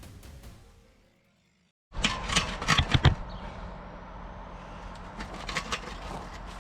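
Background music fading out, then after a brief silence a burst of loud metal clanks and knocks, followed by an engine running steadily with a few smaller knocks.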